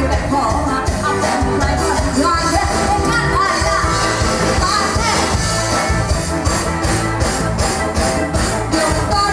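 Live band music heard from the audience: a woman sings over keyboard, drums, congas and electric guitar, with a steady beat.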